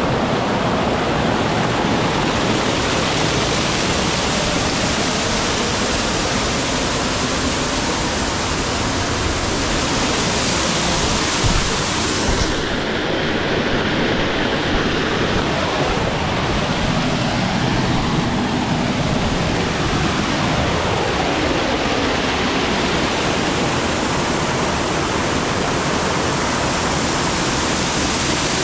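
Waterfall on the Gooseberry River pouring close by: a steady, dense rush of falling water. Near the middle there is a single light bump, and for a few seconds the rush turns duller before its brightness returns.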